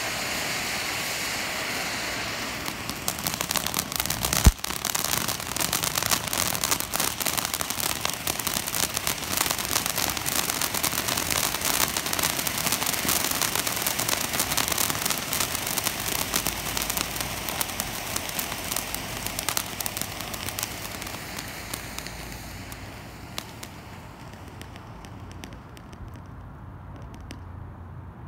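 Kozy Kone ground fountain firework spraying: a steady hiss at first, turning about three seconds in to dense crackling, with one sharp bang about four and a half seconds in. The crackling thins out and dies away over the last few seconds as the fountain burns out.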